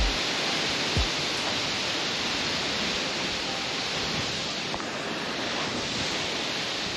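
A waterfall's steady rushing water, an even hiss with no change in level. One brief low thump about a second in.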